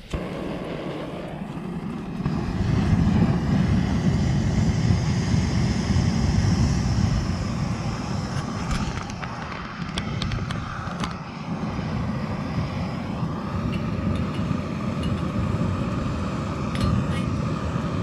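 Backpacking gas-canister stove burning steadily under a saucepan of water heating to the boil. It grows louder about two seconds in, and a few light clicks come around the middle.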